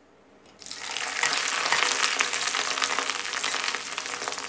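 Dried squid hitting hot oil in a wok: a loud sizzling and crackling starts suddenly about half a second in and carries on as the batch deep-fries.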